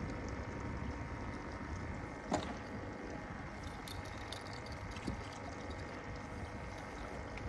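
Wind on the microphone and small waves lapping against the aluminum hull of a bay boat, with a faint steady hum underneath and a single knock about two seconds in.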